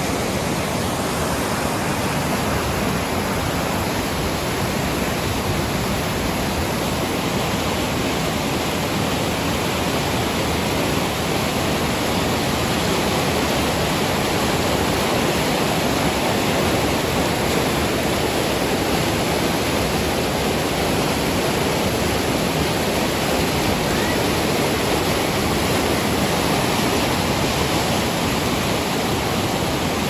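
Swollen brown floodwater pouring over a low concrete weir and churning below it: a loud, steady rush of water. The river is in flood, running fast enough that a flood warning has closed the way upstream.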